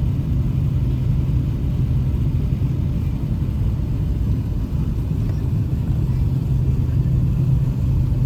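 Airbus A380 jet noise: a steady low rumble with a constant low hum, even in level throughout.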